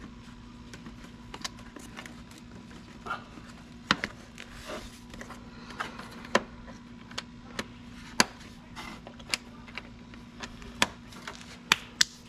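Hands working the plastic air filter housing closed over a new air filter: irregular sharp clicks and taps of plastic parts being pressed and snapped into place, about a dozen over the stretch, over a faint steady hum.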